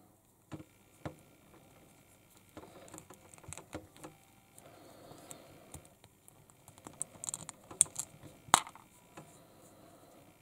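Small plastic toy figure parts clicking and tapping as they are handled and fitted together: irregular light clicks, the loudest near the end.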